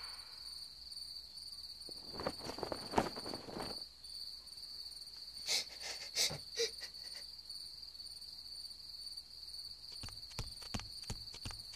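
Crickets chirping in a steady, high-pitched trill, with a few soft scattered knocks and scuffs.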